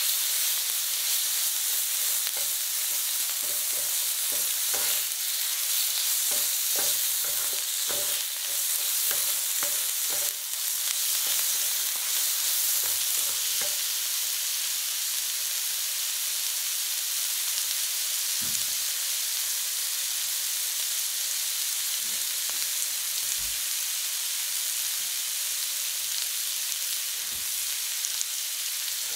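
Thinly sliced beef and garlic frying on a hot griddle: a steady high sizzle, with two spatulas scraping and clicking against the plate as the meat is tossed during the first half. After that the meat sizzles undisturbed, with only an occasional click.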